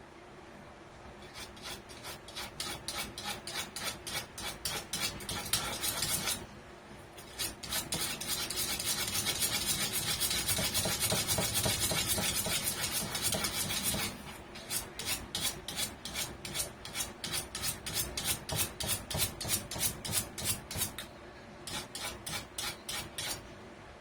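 Rhythmic scratching or rasping strokes on a surface, about three a second, in runs that stop and start, with a steadier continuous rasping stretch in the middle.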